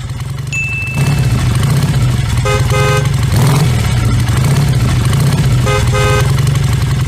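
Yamaha Sniper 150's single-cylinder four-stroke engine running through an open Yoshimura Alpha exhaust, a steady deep exhaust note that gets louder about a second in. A horn toots in two quick pairs, about two and a half and six seconds in.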